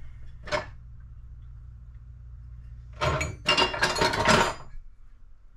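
Kitchen utensils and dishes being rummaged through: a single knock about half a second in, then a burst of clattering and metallic clinking from about three seconds in, with some high ringing. A low hum sits under the first three seconds.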